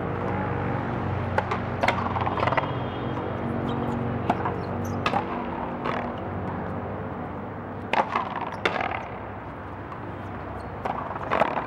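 A frontón ball struck by racquets and smacking off the court wall during a rally: sharp cracks, single or in quick pairs, about a second to three seconds apart.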